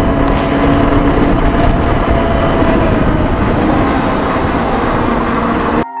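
Benelli 600i inline-four motorcycle being ridden at road speed: a steady rush of wind on the helmet-mounted microphone over the engine's drone. The noise cuts off suddenly near the end.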